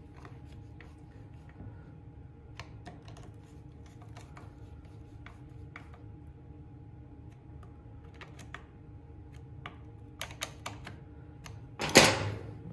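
Light scattered clicks and ticks of a hand tool turning the small nuts that hold a chainsaw's air cleaner base. Near the end a few sharper clicks follow, then one louder clatter as a tool is put down on the workbench.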